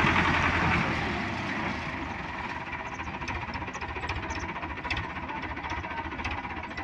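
Diesel tractor engine running with a steady, rapid knock as it pulls a trolley loaded with sugarcane; louder for about the first second and a half, then steady.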